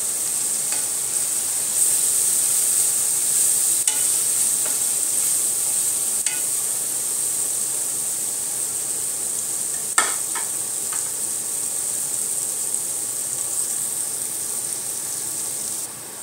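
Spice paste and green chilies sizzling in hot oil in a metal pot, stirred with a wooden spatula that scrapes and knocks against the pot a few times. The sharpest knock comes about ten seconds in. The sizzle drops in level just before the end.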